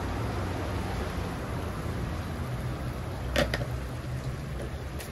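Steady low rumble, with two quick sharp knocks close together a little past the middle.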